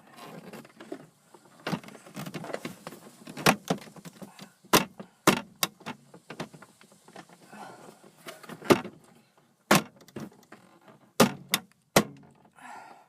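Plastic dash trim of a Toyota Corolla being handled and pushed back into place by hand: about ten sharp, irregular clicks and knocks, with rustling between them.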